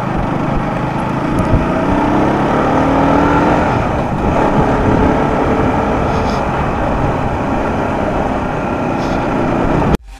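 Motorcycle being ridden, its engine running under a heavy rush of wind and road noise; the engine note rises a little about two seconds in.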